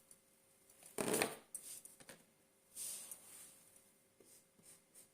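Faint rustling and handling noises in a few short bursts, the loudest about a second in.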